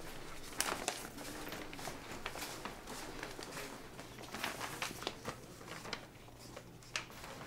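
Newspaper pages rustling, with scattered soft clicks and rustles of paper being handled and moved.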